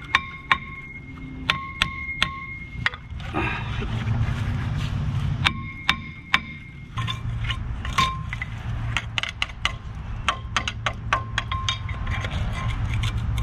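Hammer blows on a steel brake rotor, each strike ringing like a bell. The strikes come in quick bunches, then as a long run of lighter, faster taps.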